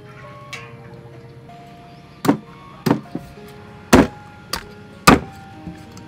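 Cleaver chopping raw chicken on a wooden chopping block: about six sharp strikes starting a little over two seconds in, roughly one every half second to second. Background music plays throughout.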